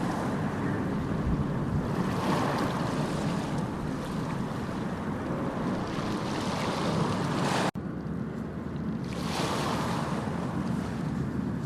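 Ocean waves washing onto shore: a steady rush of surf that swells and eases every few seconds, broken by a sudden brief cut-out in the sound about two-thirds of the way through.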